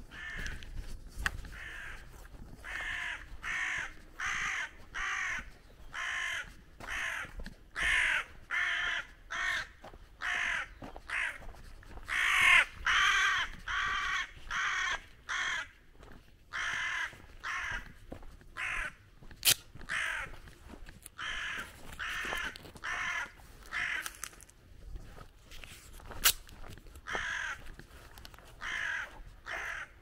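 Crows cawing over and over, a harsh call roughly once a second. Two sharp clicks come in the second half.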